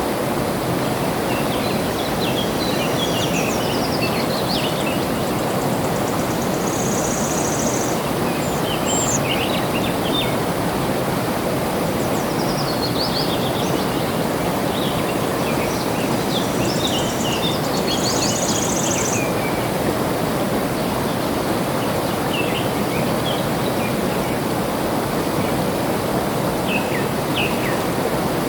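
Steady rush of flowing water, with birds chirping on and off over it and two brief high trills.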